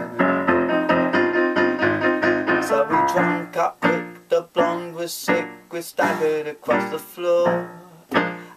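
Piano chords played on a digital keyboard, held at first, then struck about twice a second from about three seconds in.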